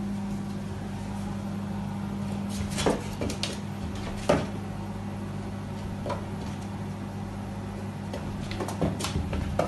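A cat pawing and bumping against a glass sliding door, making scattered knocks and taps, over a steady low hum.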